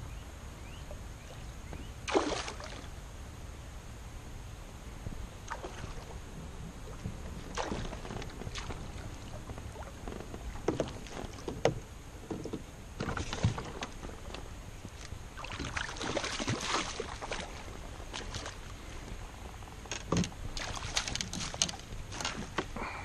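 A canoe being paddled: irregular splashes of the paddle in the water and knocks against the hull, over a low steady rumble.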